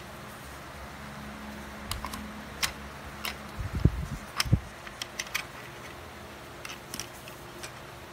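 Small plastic clicks and knocks as the battery cover on the underside of an M107 wireless mouse is pried open and the compartment handled, a dozen or so irregular clicks with the loudest cluster in the middle. A steady low hiss and hum lies underneath.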